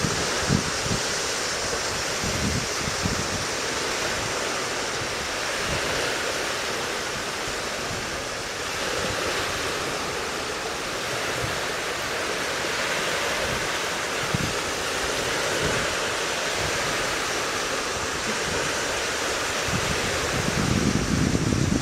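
Steady wind noise: an even hiss, with irregular low rumbling gusts buffeting the microphone that grow stronger near the end.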